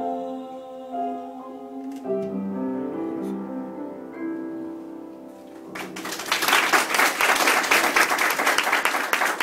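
Upright piano playing the closing chords of a show tune, then a small group starts applauding about six seconds in, louder than the piano.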